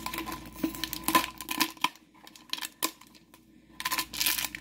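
Foil blind-bag packaging being torn open and crinkled by hand, with sharp clicks from the plastic tray inside being handled. It goes quiet for a moment in the middle, then the crinkling starts again.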